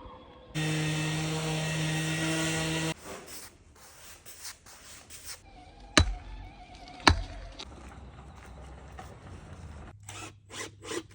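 A power tool runs at a steady pitch for about two seconds, starting and stopping abruptly. Later come two sharp knocks about a second apart.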